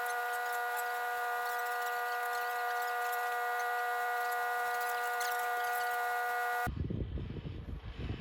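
A steady mechanical hum made of several even tones, which cuts off suddenly near the end and gives way to an uneven low rumble.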